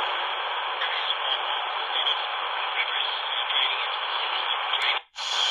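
Shortwave static from the C.Crane CC Skywave 2's speaker tuned to 9955 kHz: a steady, thin-sounding hiss with no clear programme. About five seconds in it cuts out as the radio is retuned, then a short burst of hiss follows.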